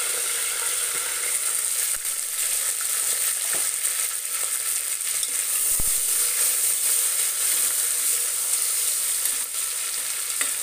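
Green chillies and onions sizzling in hot oil and ghee in an aluminium pressure cooker: a steady high hiss with scattered small crackles and clicks. Near the end a metal ladle stirs them.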